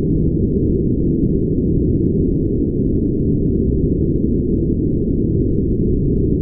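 Brown noise: a steady, deep, even rush with all its weight in the bass and no highs, unchanging throughout.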